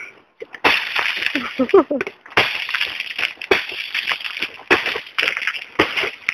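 Footsteps crunching and cracking through an ice glaze on the ground, in a rapid, irregular series of crackles.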